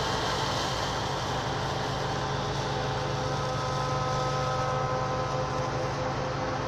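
John Deere combine harvester running under load while harvesting barley: a steady drone of the engine and threshing machinery, with a few steady tones held above it.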